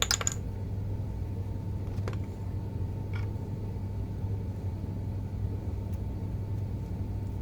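A steady low hum with a few faint clicks of small parts being handled.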